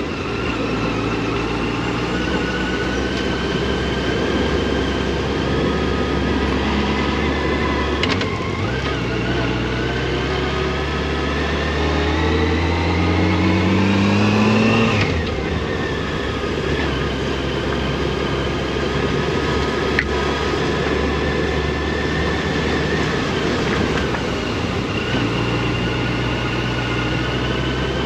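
Motorcycle engine running while riding, holding a steady pitch, then climbing as the bike accelerates from about 8 seconds in, and dropping abruptly at an upshift about halfway through.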